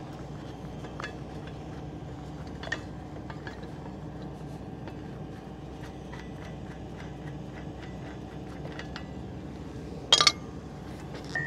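Steel flange bolts and hand tools clinking and scraping as a bolted pipe flange is taken apart by hand, with two sharp metal clanks close together near the end. A steady low hum runs underneath.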